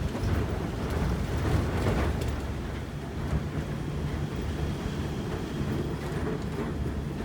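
A vehicle driving along a road, giving a steady low rumble of engine and road noise, with a few faint clicks and knocks.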